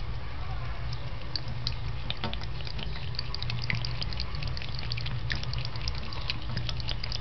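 A cat lapping water straight from a tap's spout: quick, wet licking clicks, irregular and several a second, starting about a second in, with a trickle of water.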